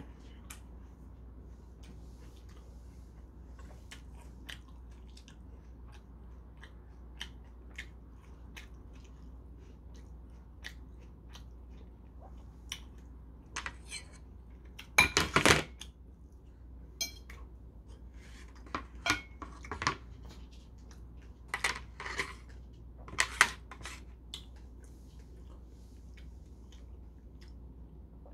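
Eating at the table: a metal fork clicking and scraping against a porcelain plate in scattered strokes, with chewing between. The loudest cluster of clicks comes about halfway through.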